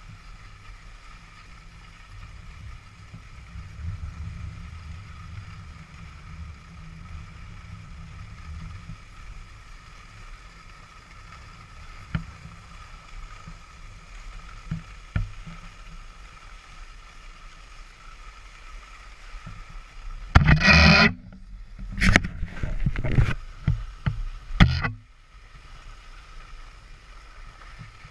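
Skis sliding over groomed snow, heard as a steady low rumble and hiss of wind on the camera microphone. About twenty seconds in, a cluster of loud harsh scraping noises lasts about five seconds, then the steady sliding sound returns.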